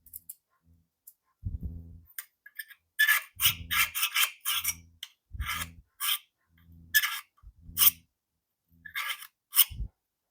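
Scriber scratching marking lines onto steel pieces in a series of short, separate strokes, with low knocks of the metal and tools being handled.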